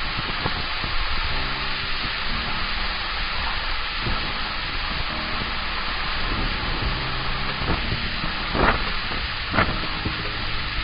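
Heavy rain falling on the water and the paved seawall: a steady, dense hiss, with two short, louder bursts near the end.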